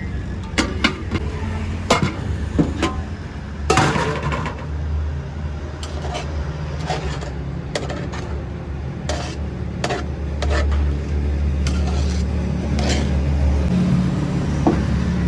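Metal utensils and dishes clinking and clattering in short irregular knocks over a steady low rumble, with a burst of clatter about four seconds in.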